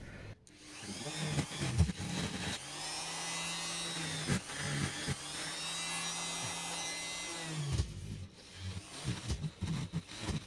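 Electric straight grinder with a burr carving olive wood. It runs unevenly at first, then steadily for about five seconds, and breaks into short bumps and scrapes near the end.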